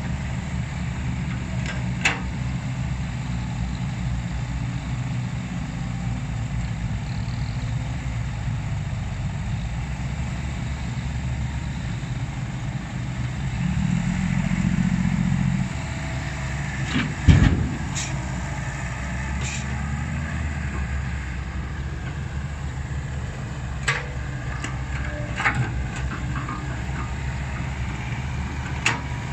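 Komatsu excavator's diesel engine running steadily, working harder for about two seconds near the middle, with several sharp knocks and clanks along the way.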